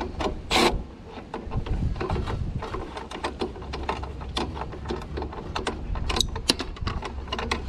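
Irregular run of small metallic clicks and knocks from hand tools working on a condenser fan motor and blade assembly, over a low steady hum.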